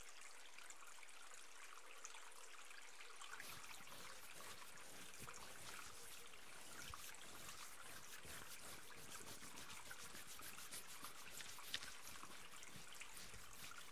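Faint trickling stream: a steady, gentle water sound with light ticks, and one slightly louder tick near the end.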